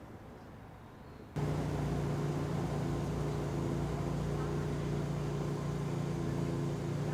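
An engine running steadily with a low, even hum, which starts suddenly about a second and a half in after a quiet background.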